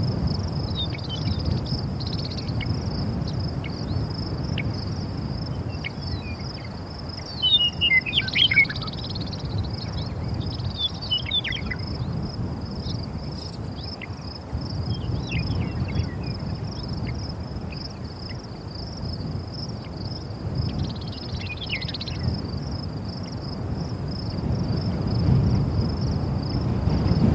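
Wind gusting against the microphone as a low, uneven rumble, under a steady high insect trill. Several short bird chirps come through, the loudest about eight seconds in.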